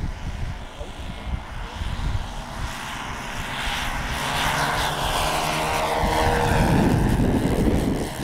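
Four four-stroke engines of a radio-controlled B-17 model droning in a low fly-past, growing louder as it comes in and dropping in pitch as it passes.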